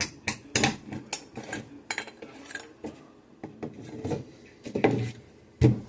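Folding knife blade working through kindling wood: an irregular run of sharp knocks, clicks and scrapes, with two heavier knocks near the end.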